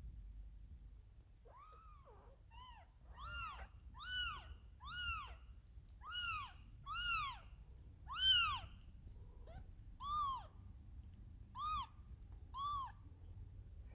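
A kitten meowing over and over, about a dozen high-pitched mews roughly a second apart, each one rising and then falling in pitch; the loudest comes a little past halfway.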